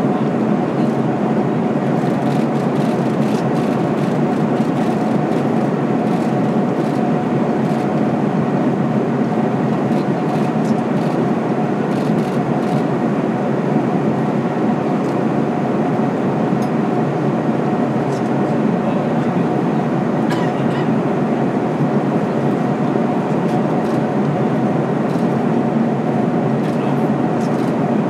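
Steady cabin noise inside an Airbus KC-30A tanker in cruise: an even rush of airflow and engine noise with a faint steady hum under it.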